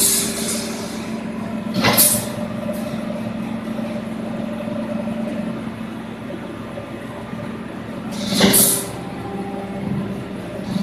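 Fence mesh bending machine running with a steady hum, broken by three short, loud hissing bursts: one at the start, one about two seconds in and one about eight and a half seconds in.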